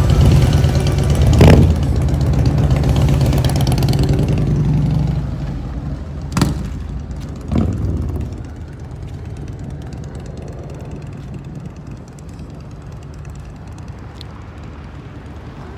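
An engine running steadily, loud for about five seconds and then fading away. Two sharp knocks come in the middle.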